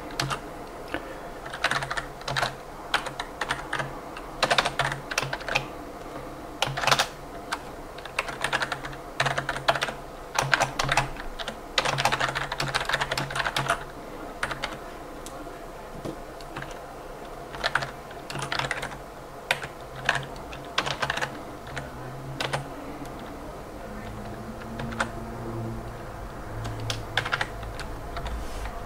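Typing on a computer keyboard in quick bursts of key clicks with short pauses between them.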